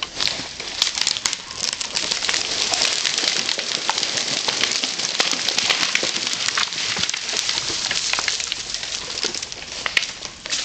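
Burning conifer branches crackling and popping steadily, with many sharp snaps.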